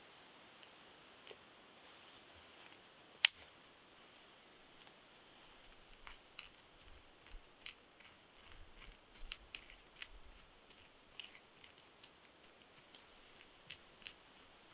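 Dry fallen leaves and twigs crackling as leaf litter is scraped away from the ground with a stick and a hand, in scattered irregular crackles from about six seconds in. A single sharp click about three seconds in.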